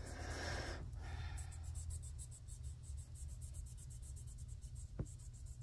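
Sponge-tip applicator rubbing and burnishing chrome powder onto a nail tip: a faint, fast scratching of many short strokes. A breath through the mouth at the start and a single small tap near the end.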